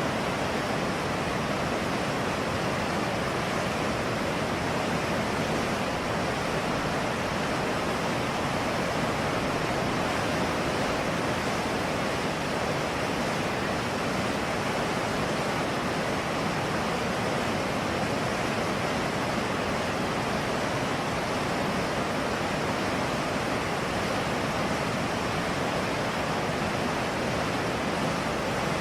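Rushing river water: a steady, even hiss of fast-flowing current with no breaks or changes.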